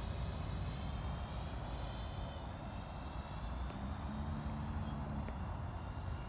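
Freewing F-14 Tomcat RC jet's twin 80 mm electric ducted fans whining faintly from a distance: a high whine of several tones drifting slightly in pitch, over a steady low rumbling noise.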